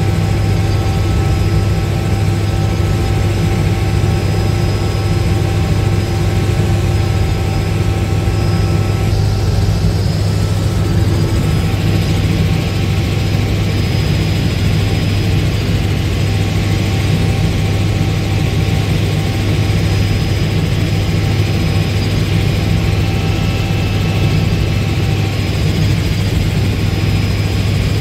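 Helicopter engine and rotor running steadily in flight, heard from inside the cabin: a constant low drone with a few steady higher-pitched whines above it.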